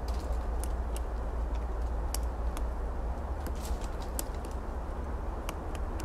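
Pileated woodpecker pecking and chiselling into rotten wood while foraging: about ten light, sharp taps at an uneven pace, not a drumming roll. A steady low rumble runs underneath.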